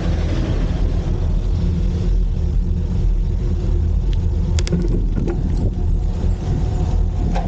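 Steady low wind noise buffeting the microphone of a camera on a moving bicycle, with a few sharp clicks about four and a half seconds in.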